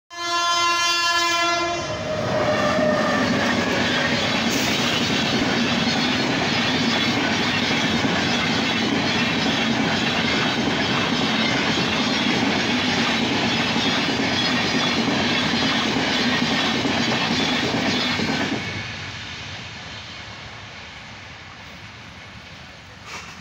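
A train horn sounds one long blast, then the Shatabdi Express passes through the level crossing with the steady rumble of coach wheels on the rails. The noise drops away suddenly about eighteen seconds in as the last coach clears, and fades.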